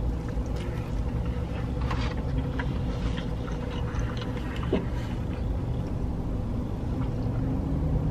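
A car's engine idling, a steady low hum heard from inside the cabin, with soft chewing and mouth clicks as a breakfast slider is eaten.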